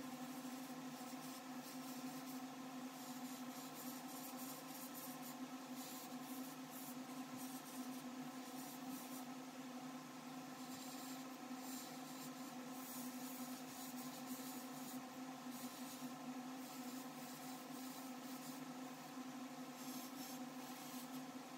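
Small airbrush compressor running with a steady hum, with faint hisses of air coming and going as the airbrush sprays gold metallic paint.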